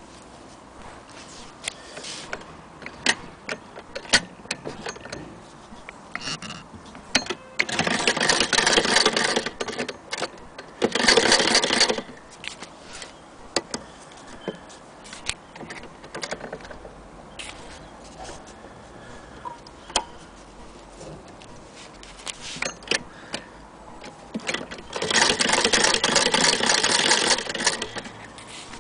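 Antique Singer 28K hand-crank vibrating-shuttle sewing machine stitching in three short runs of fast, even clatter, about 8 seconds in, about 11 seconds in, and near the end. Between the runs come scattered clicks and knocks as the fabric and machine are handled.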